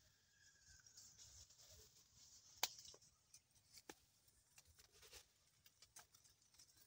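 Near silence: faint forest background with a few scattered light clicks and ticks, the sharpest about two and a half seconds in.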